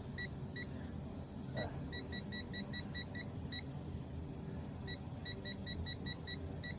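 Digital multimeter beeping in quick short pips, about five a second, in two runs about a second apart. The meter's continuity beeper is sounding through the test leads.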